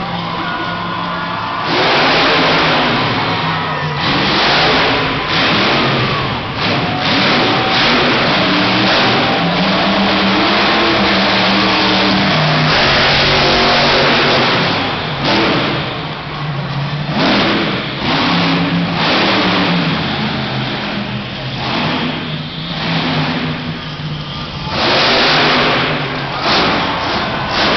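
Grave Digger monster truck's engine revving hard in repeated full-throttle bursts, its pitch rising and falling as it drives and wheelies on the dirt course.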